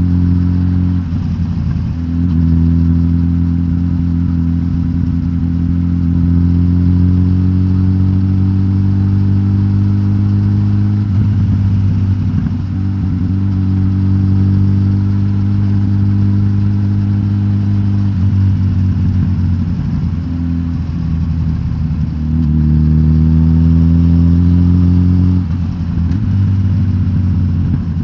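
Suzuki GSX-S1000GT's K5 inline-four engine, de-catted with the stock exhaust, running under way. The engine note climbs slowly in pitch and drops sharply several times at what sound like gear changes, with a louder, quicker rise near the end.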